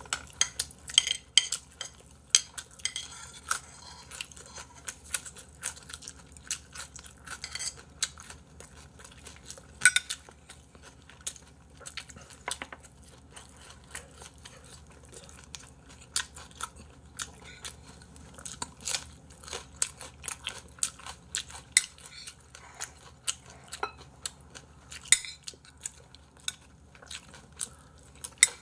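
Eating at a table: irregular clicks and clinks of chopsticks and a spoon against bowls and plastic food trays, with chewing in between.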